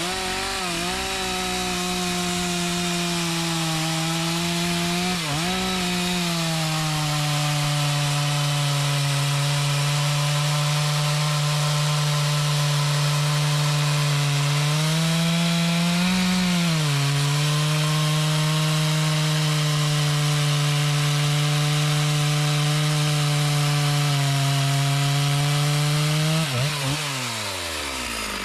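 Two-stroke chainsaw cutting into a mahogany tree: it revs up, holds a steady high pitch through the cut with two brief dips under load, then drops back toward idle near the end.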